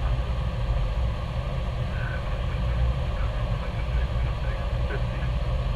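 Steady low drone of aircraft engines heard inside the cockpit, with faint voices underneath.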